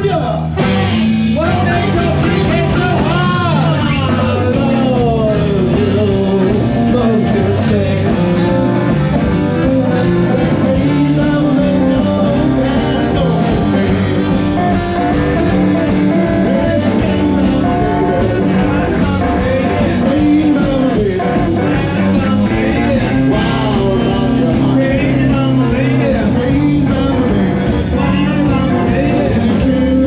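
Live blues band playing, with electric guitar and saxophone over a drum kit.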